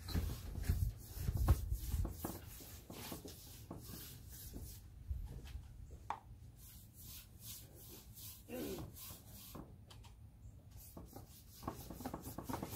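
Bristle brush stroking wood stain onto bare wooden boards: repeated short scraping brush strokes along the grain, with a few low bumps in the first two seconds.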